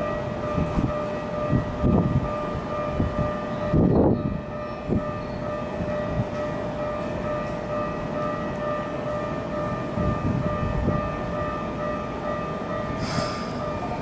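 Keikyu electric train rolling slowly toward the platform, its wheels rumbling and knocking over rail joints a few times, over a steady electronic warning tone. There is a short hiss near the end.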